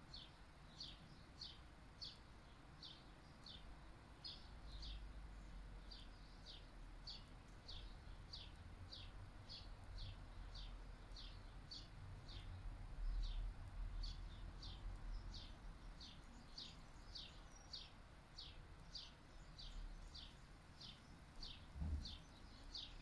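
A bird calling in a steady, unbroken series of short, high, falling chirps, about two a second. Beneath it runs a low rumble of wind on the microphone that swells in the middle.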